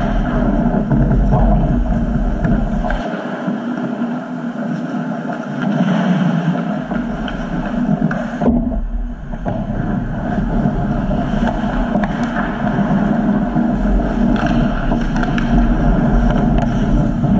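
Ice hockey play close to the goal: skates scraping on the ice and sticks and puck clicking, over a steady loud rumble on the camera's microphone.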